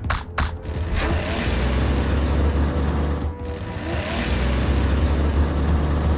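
Two sharp knocks, then a monster truck engine sound effect running and revving as a heavy rumble, which drops briefly past the middle and comes back.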